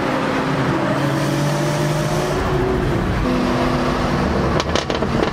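Turbocharged BMW E46's straight-six engine heard from inside the cabin, running with a steady drone while driving; its pitch rises slowly, then drops back about halfway through. A short rattle of clicks comes near the end.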